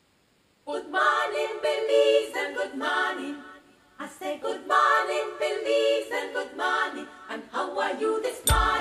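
Soundtrack music: several voices singing a cappella in harmony, starting just under a second in. Just before the end, instrumental music with a deep bass comes in.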